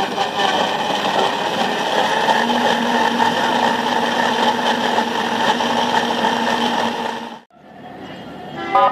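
Electric juice blenders running with a steady whir as they mix fruit juice. The sound cuts off about seven seconds in, and a vehicle horn toots right at the end.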